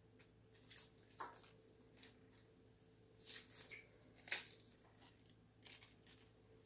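Faint rustling and crackling of lettuce leaves being pulled from a plastic bag, torn and laid down, in a few short bursts with the sharpest crackle about four seconds in, over a faint steady low hum.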